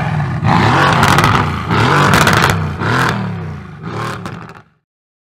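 Car engine revved in repeated blips, the pitch rising and falling several times, with the exhaust crackling and popping between revs; the sound cuts off suddenly shortly before the end.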